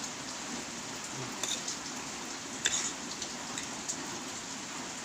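Steady rain falling, with a few brief sharp clicks.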